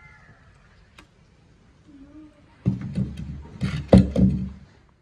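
A cluster of knocks and clattering thumps over about two seconds, starting a little over halfway in and loudest near the end, with a heavy low rumble beneath.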